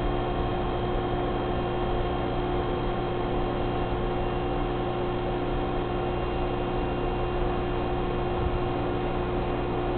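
Reef aquarium's pumps and circulation equipment humming steadily, with several fixed tones over a constant hiss.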